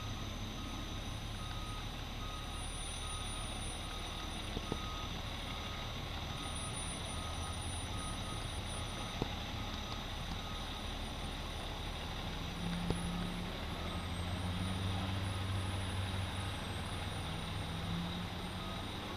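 Fire engine backing up: its reversing alarm beeps steadily at about two beeps a second over the low running of its diesel engine, which grows louder about two-thirds of the way through as the truck maneuvers.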